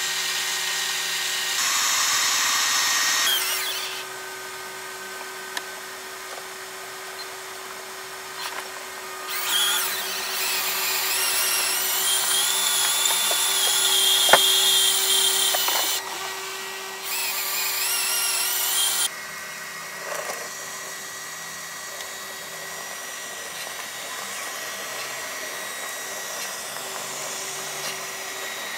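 Small electric winch motor on a 1:10-scale RC crawler whining in bursts of a few seconds, its pitch wavering, as it reels in the line to pull the rolled-over truck back onto its wheels. A steady faint hum runs beneath, and a single sharp click sounds about halfway through.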